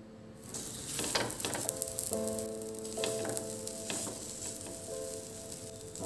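Oil sizzling on a flat griddle (tawa) as mashed patties are laid into it, the sizzle starting about half a second in when the first patty goes down, with sharper crackles now and then.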